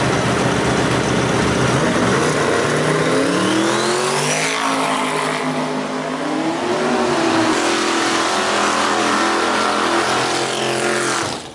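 Drag racing car engine at full throttle down the strip, its note climbing in pitch, easing and climbing again, then cutting off abruptly near the end.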